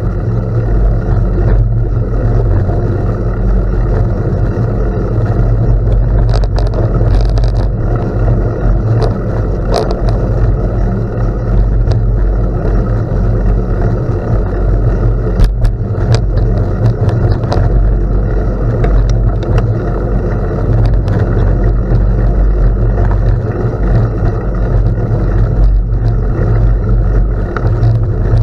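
Wind buffeting a moving camera's microphone over the hum of bicycle tyres rolling on gravel, a steady loud rumble with a few sharp clicks and pings scattered through it.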